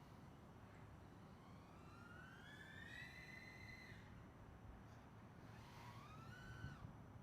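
FPV quadcopter's brushless motors whining faintly as the throttle is worked: one whine rises in pitch for about two seconds and cuts off, and a shorter one rises and stops near the end.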